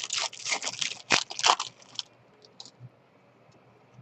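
Trading cards being flipped and handled: a quick run of crisp clicks and rustles for about two seconds, then only a few faint ticks.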